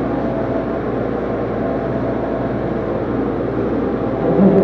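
Walk-in freezer's refrigeration unit running: a steady hum with several steady tones over an even rush of fan noise.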